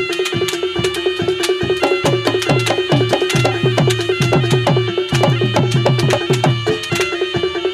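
Reog gamelan accompaniment playing a fast, busy rhythm. Drums are struck rapidly, some low drum notes bend downward in pitch, and a steady ringing tone from the bronze instruments holds underneath.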